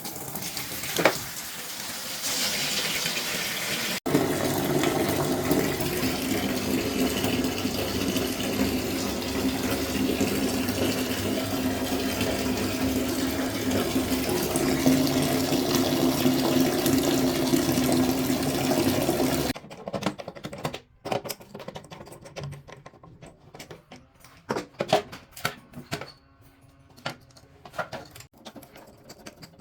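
Water running hard from a faucet into a sink, a steady rush lasting about seventeen seconds that stops abruptly. Then come scattered light clicks and knocks.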